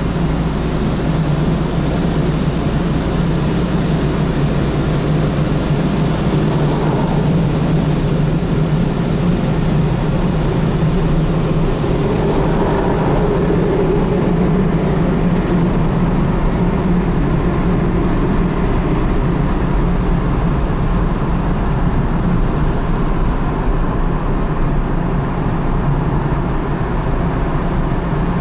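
Automatic car wash machine running steadily: a loud, even rush of noise over a low hum.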